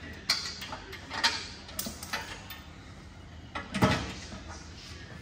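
Scattered light clicks and knocks of a Ford Bronco's skid plate and its fasteners being handled and fitted back under the front end, the loudest knock a little under four seconds in.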